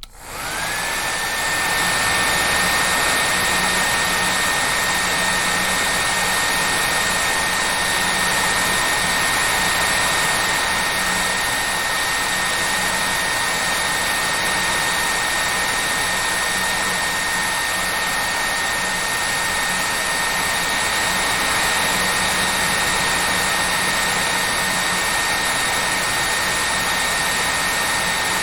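Hair dryer starting up and then running steadily: a brief break at the very start, then the motor's whine rises within about a second to one high steady pitch over a constant rush of air.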